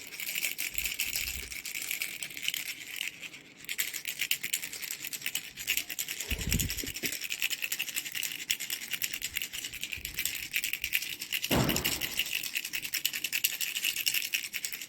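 Mango-shaped baby rattle shaken continuously, its beads making a fast, steady clatter. There is a short break about three and a half seconds in, and two dull thumps from the rattle being handled, one near the middle and one about twelve seconds in.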